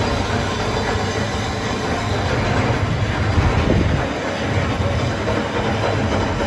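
A steady mechanical rumble with a low hum.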